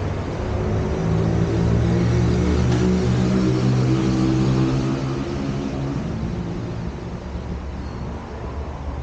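A motor vehicle engine passing close by on a street, loudest a second or two in and fading away after about five seconds, over steady traffic noise.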